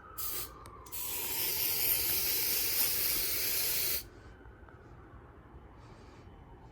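Aerosol can of smoke-detector test spray hissing as it is sprayed at a smoke alarm to test its sensor: a short puff, then one steady spray of about three seconds that cuts off sharply.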